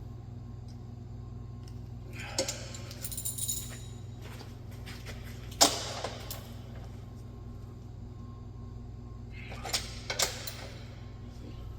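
Metal hand tools and hardware clinking and jangling as they are handled and set down, in three short clusters, the sharpest a single clack about halfway through, over a steady low hum.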